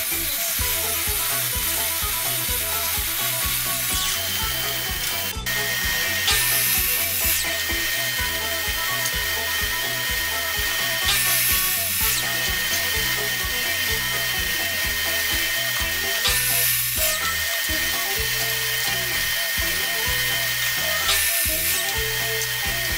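Miter saw crosscutting Baltic birch plywood strips four times, each cut a short burst of about a second, over background music with a steady beat. A steady high whine runs under it from about five seconds in.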